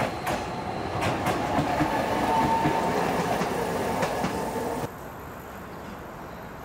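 Tokyo Sakura Tram streetcar running along its rails, with a steady rumble, a few sharp wheel clicks over rail joints and a faint thin whine about midway. The rumble cuts off suddenly about five seconds in, leaving a much quieter background.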